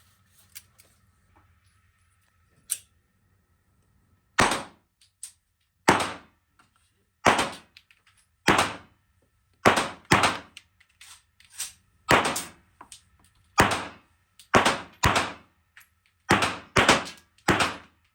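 Gunshots in an indoor shooting range: about fourteen single shots fired at an uneven pace, roughly one a second, some in quick pairs.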